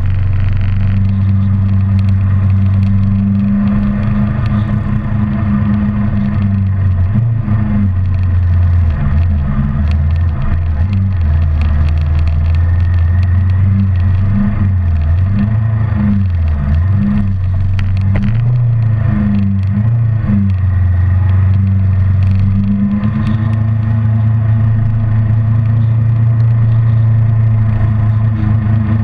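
Kawasaki Ninja 650R's parallel-twin engine running at road speed, a steady low drone that wavers and breaks up through the middle stretch and steadies again near the end, with wind noise on the microphone.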